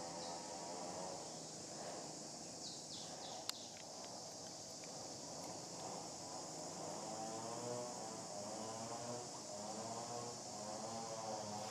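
Steady high-pitched drone of insects, with a low wavering hum coming in over the last few seconds and a single sharp click about three and a half seconds in.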